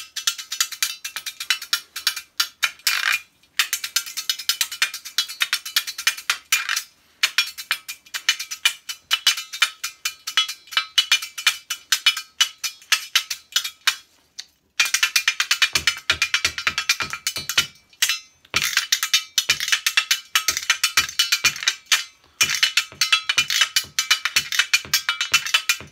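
A washboard tie, a small corrugated washboard worn as a necktie, played as percussion in fast rhythmic patterns of bright scrapes and clicks, in phrases with brief pauses. About fifteen seconds in, low thumps join the rhythm.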